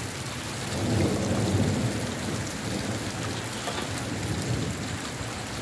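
Heavy rain pouring down onto a flooded courtyard and surrounding roofs as a steady hiss. A low rumble swells in about half a second in and fades out again over the next two seconds.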